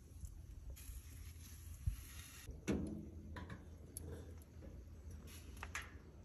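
Metal knocks and clicks from handling a charcoal grill, with one louder clank and a short ring about two and a half seconds in, over a steady low hum.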